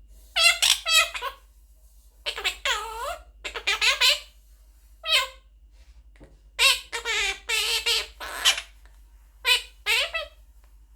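Young quaker parrot (monk parakeet) talking: about seven short bursts of high-pitched mimicked words and phrases, separated by brief pauses.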